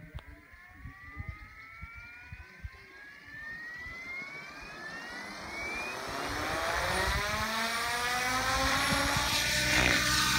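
Electric MSH Prôtos Max V2 RC helicopter spooling up: the motor and gear whine rises in pitch for about six seconds, then holds steady while the main rotor's whoosh grows steadily louder.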